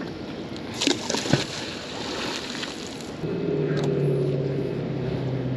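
A few sharp knocks about a second in, then an engine starts droning steadily at a low pitch about three seconds in.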